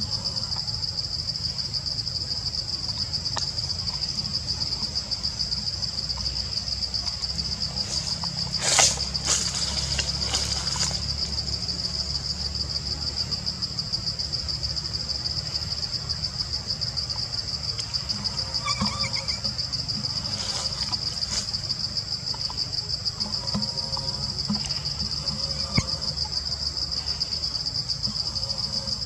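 Forest insects trilling steadily, a high, fast, even pulsing that runs without a break. A brief louder crackle comes about nine seconds in.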